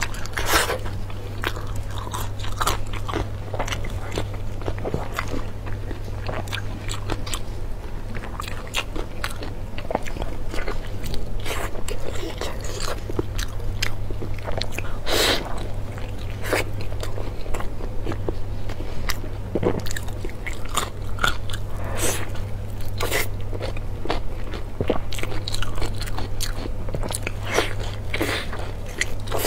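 Close-miked eating: biting into and chewing soft, sauce-glazed braised meat as it is torn apart by hand, a dense irregular run of wet clicks and smacks. A steady low hum lies underneath.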